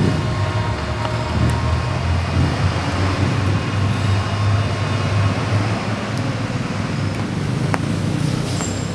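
Steady low rumble of road traffic with a heavy vehicle's engine running close by.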